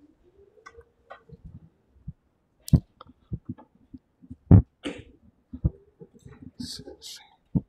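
Handling noise from a handheld phone being carried while walking: irregular soft thumps and rubbing, the loudest about a third of the way and just past halfway in, with a few short hissy breaths near the end.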